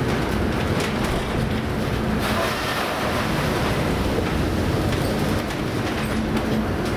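An emergency rescue vessel working through a heavy North Sea storm: a steady rumble of rough sea and wind against the ship, with scattered sharp knocks and rattles. About two seconds in, a hiss of spray rises as a wave breaks over the bow.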